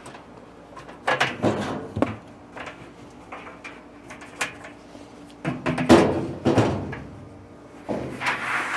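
Knocks, clatters and scrapes of hands working a new drive belt onto a dryer's drum and idler pulley inside the metal cabinet, in several short bunches, the loudest a little past the middle.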